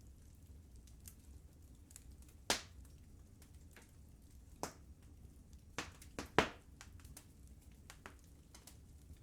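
Wood fire burning in a fireplace: irregular sharp crackles and pops over a low steady rumble, with the loudest pops about two and a half seconds in and a cluster of them past the middle.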